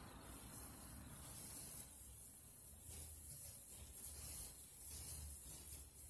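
Hands rubbing and pulling through hair, a series of faint, irregular hissy swishes over a low steady hum.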